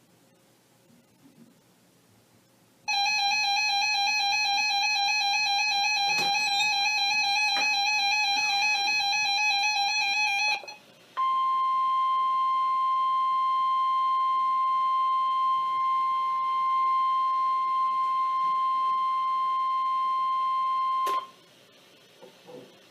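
A warbling electronic alert tone sounds for about seven seconds, then after a short break the NOAA Weather Radio 1050 Hz warning alarm tone plays as one steady high beep for about ten seconds and cuts off with a click, signalling that a warning is about to be broadcast.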